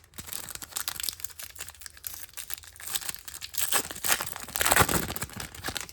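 Foil wrapper of a baseball trading card pack crinkling and tearing as it is handled, a rapid crackle that is busiest near the end.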